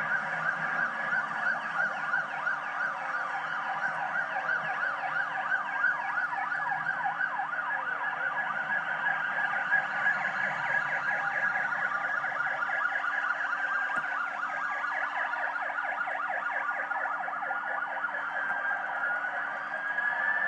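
Several motorcycle sirens sounding at once, fast-warbling and slowly wailing tones overlapping, from a motorcycle escort unit riding in formation, heard through a television broadcast.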